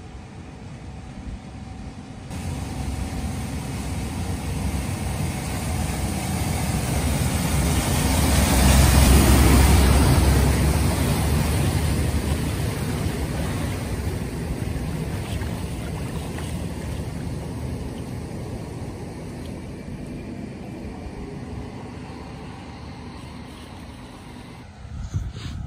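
Refuse lorry driving through deep floodwater on a road, its diesel engine running under the rush and splash of the bow wave it pushes up. It grows louder as it passes, loudest a little over a third of the way in, then slowly fades as it drives away.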